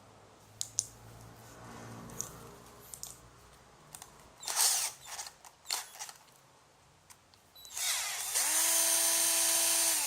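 A 12V cordless drill is handled with a few clicks and given several short bursts. About eight seconds in, its motor spins up with a rising whine and runs steadily for about two seconds before stopping sharply.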